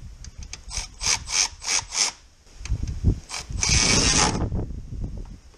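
Cordless electric ratchet running a bolt down: about six short pulses in the first two seconds, then one longer run of just under a second. It is tightening the bolt that holds the power-module bracket on the fender.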